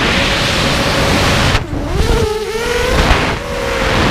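FPV freestyle quadcopter's brushless motors and propellers whining, with heavy rushing wind noise on the onboard GoPro's microphone. About a second and a half in the throttle is cut briefly and the sound drops away, then it is punched back up and the motor whine rises in pitch.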